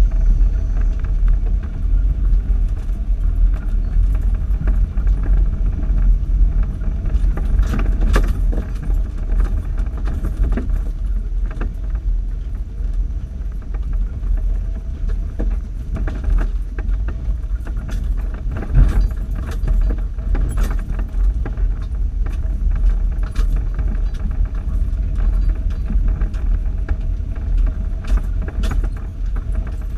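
Off-road 4x4 driving slowly over a rutted dirt trail, heard from inside the cab: a steady low engine and road rumble, with rattles, clinks and knocks as it rocks over the bumps.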